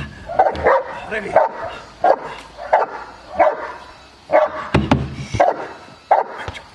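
A 14-month-old Cane Corso barking repeatedly at a helper hidden in a training blind, about one bark every two-thirds of a second. This is the hold-and-bark at the blind in IPO protection training.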